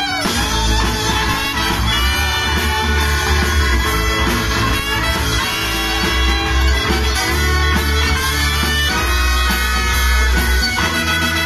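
A live band playing an instrumental boogie-blues passage: fiddle, accordion, saxophone, trombone and trumpet over guitars and a strong, steady bass line.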